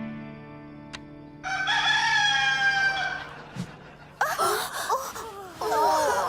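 Cartoon rooster crowing: one long crow about a second and a half in, then rapidly wavering calls from about four seconds in.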